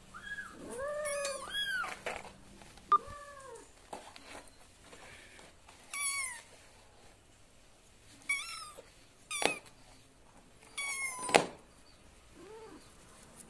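Kittens meowing repeatedly in short, high-pitched calls, some rising and falling, others falling sharply in pitch, about seven in all, with a sharp knock about three seconds in and another near the end.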